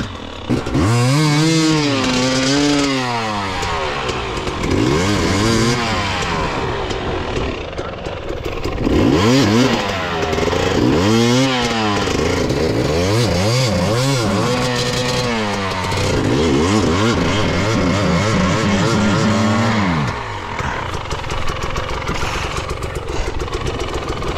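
Hard enduro dirt bike engine revved up and down over and over, the pitch rising and falling every second or two, then settling to a steadier, lower run near the end.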